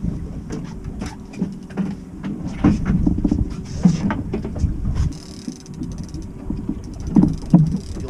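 Irregular knocks and clatter with low rumbling on a small fishing boat, over a faint steady hum.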